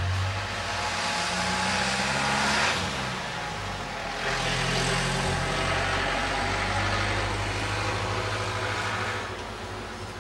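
Road traffic going past: two vehicles one after the other, engine and tyre noise. The first swells up to about three seconds in and drops away. The second comes in about a second later and holds before fading near the end.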